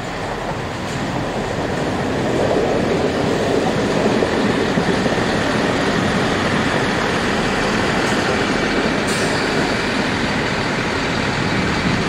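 Chiltern Railways Class 165 diesel multiple unit running close past along a station platform: the diesel engine and wheel-on-rail rumble builds over the first couple of seconds, then holds steady and loud.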